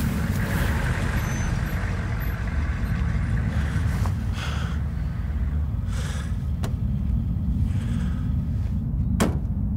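Steady low rumble under brief soft rustles, with one sharp click near the end.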